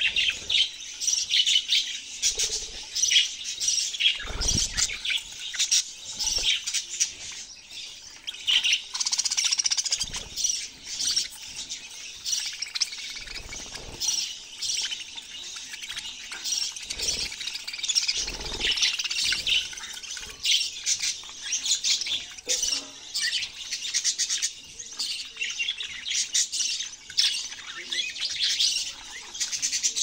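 A caged flock of budgerigars chirping and chattering continuously, many birds at once, with a few low thuds from movement in the cage.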